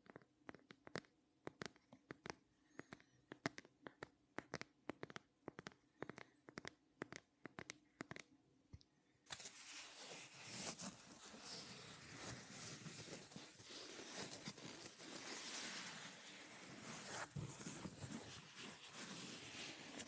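Close-up tapping on a clear plastic phone case, in sharp, separate, irregular taps several a second. About nine seconds in it switches abruptly to dense, continuous scratching on a frosted plastic phone case held against the microphone.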